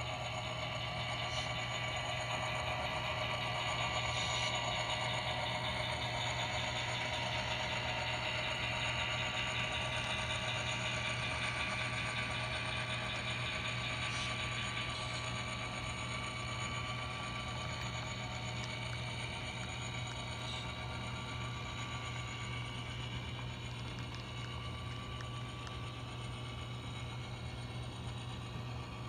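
Model train running past on a layout: a steady motor hum with the clatter of wheels on the track, loudest a few seconds in and slowly fading.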